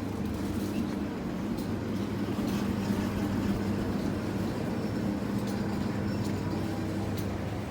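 Steady low rumble and hum of a running vehicle, even throughout, with a few faint clicks and rattles over it.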